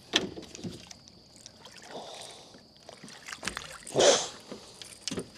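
Scattered clicks and knocks of handling, with one short, louder rush of noise about four seconds in, over a steady faint high-pitched whine.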